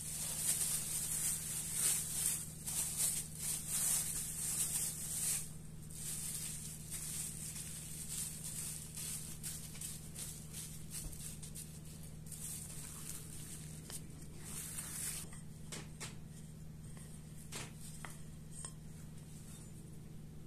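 Thin plastic bag crinkling and rustling in irregular bursts as potato dough is pressed and flattened by hand inside it. The crinkling stops about three-quarters of the way through, leaving a few faint taps.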